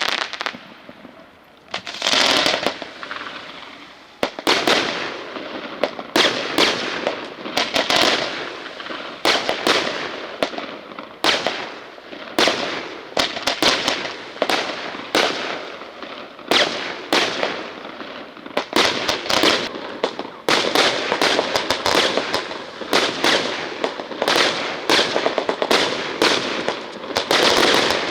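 Fireworks going off: a rapid, near-continuous run of bangs and crackling, with a short lull about a second in before the barrage picks up again.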